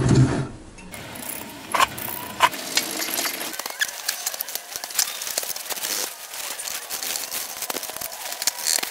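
Knife blade scraping and chipping hardened, foamed-up Gorilla Glue off the glued cracks of a terracotta pot: a run of irregular, quick scratches and small clicks.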